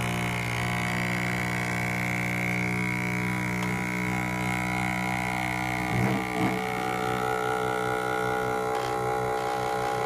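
Vacuum pump of a FoodSaver V2490 vacuum sealer running steadily while pumping down a canister connected directly to its outlet. About seven seconds in it turns higher pitched as the vacuum deepens, reaching the full-vacuum stage the machine never reached before, a sign that the pump itself is good.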